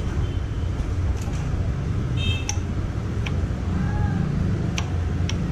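Scattered light metallic clicks as a Royal Enfield starter-clutch (sprag clutch) gear is slid by hand onto its shaft in the open engine, over a steady low rumble.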